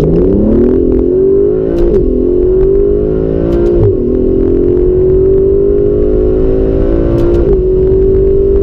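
Aston Martin DB11's turbocharged engine under full-throttle acceleration, heard from inside the cabin. Its pitch rises steadily through the gears, broken by three quick upshifts about two, four and seven and a half seconds in.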